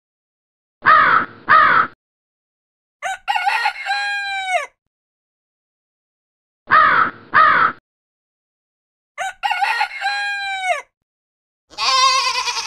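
A crow caws twice, then a rooster crows, its call falling at the end; the same pair of calls comes again. Near the end a goat starts bleating with a wavering pitch.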